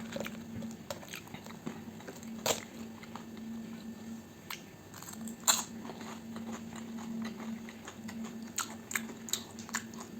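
Close-miked chewing and crunching of crispy fried bacon, with two sharper crunching bites about two and a half and five and a half seconds in.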